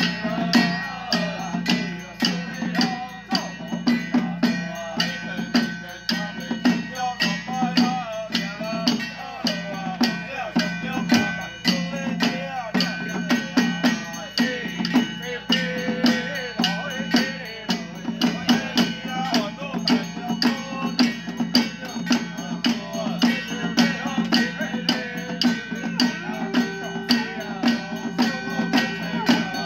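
A group of men chanting together over a quick, steady beat of handheld drums and clacking percussion, a temple ritual troupe's chant.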